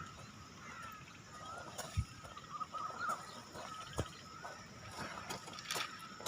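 Quiet outdoor rainforest ambience with faint wavering chirping calls, likely birds, and a few soft knocks, two of them about two and four seconds in.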